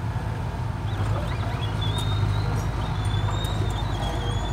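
Komatsu mini crawler bulldozer's diesel engine running steadily under load as it pushes soil, with faint clicks from the tracks. High thin wavering bird calls sound over it about halfway through and again near the end.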